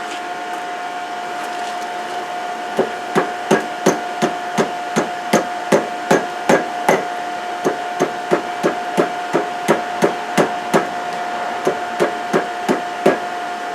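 Hand hammer striking hot steel on an anvil at about three blows a second, starting a few seconds in with a short pause midway, over a steady whirring hum that fits a coal forge's blower.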